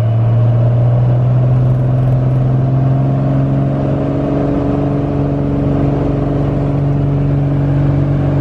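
Cessna 182's 300 hp fuel-injected IO-550 engine and propeller at takeoff power during the takeoff roll, a loud steady drone whose pitch rises gently as the plane gathers speed.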